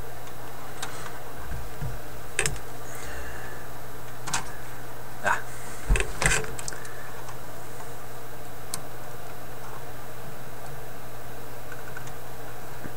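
Irregular small clicks and taps of hand tools and wire being handled at the workbench, the loudest cluster around five to six and a half seconds in, over a steady low hum and hiss.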